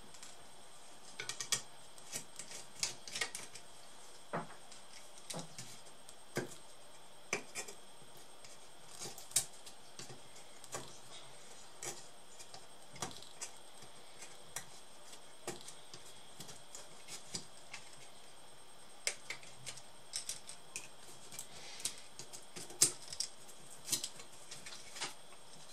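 Small screwdriver and screws clicking and tapping irregularly as the fan and copper heat-pipe cooling module of a Samsung R580 laptop is unscrewed and handled, over a faint steady hiss.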